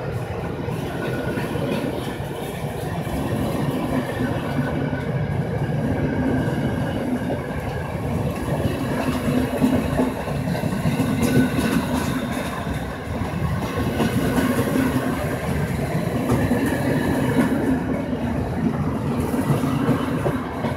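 Empty stake flat wagons of a freight train rolling past on the rails: a steady rumble and rattle of wheels and running gear.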